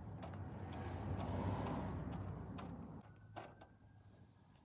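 A drill bit turned by hand in a small hole in a plastic battery door, enlarging the hole with a soft scraping that swells and fades over about three seconds, then stops. A faint click follows.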